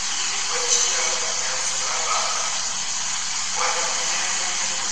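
Steady background hiss of room noise, with a few faint brief sounds about one, two and three and a half seconds in.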